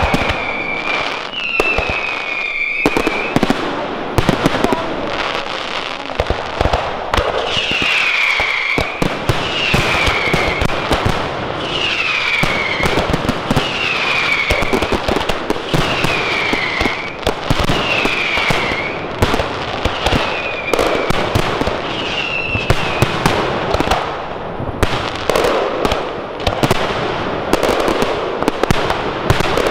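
Large fireworks display: a dense run of bangs and crackling reports. Over it, a whistle drops in pitch and repeats about every two seconds, stopping a few seconds before the end.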